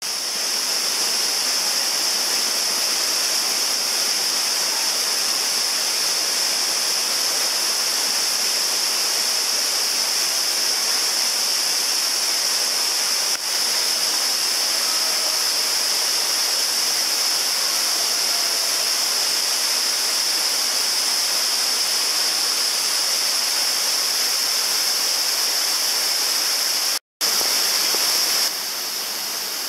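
Steady rush of stream water and cascades in a narrow rock gorge, with a strong high hiss. The sound cuts out for a moment near the end.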